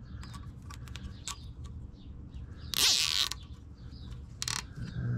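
Nylon cable tie being zipped tight around a wiring harness: a rasping ratchet a little under halfway through, then a shorter second pull about a second later, among small clicks of handling.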